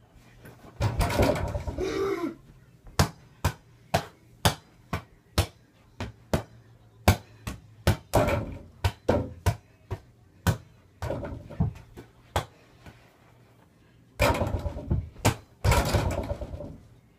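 A small rubber basketball bouncing repeatedly on a floor, about two bounces a second, and thudding against an over-the-door mini hoop, with a few longer stretches of scuffling noise in between.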